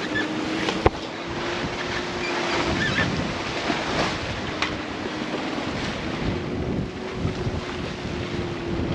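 Wind on the microphone and waves rushing along the hull of a sailing yacht making good speed in about 20 knots of wind. A faint steady hum runs underneath, with a single sharp knock about a second in.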